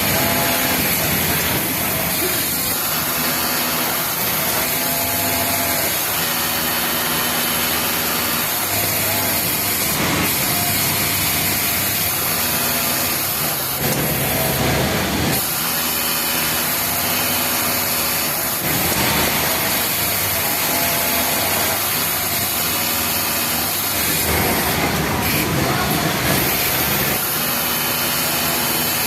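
Industrial overlock sewing machine running in short stitching runs of a second or two, its motor hum starting and stopping, over steady loud machine noise.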